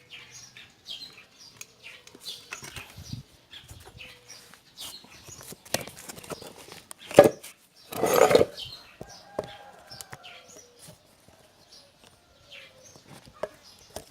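Birds chirping in the background. About 7 s in comes a sharp loud rasp, then around 8 s a longer noisy burst of about half a second: a brush cutter's recoil starter being pulled without the two-stroke engine catching.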